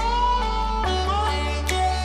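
Background music: a melody on plucked strings over a steady bass line, with sharp percussion hits.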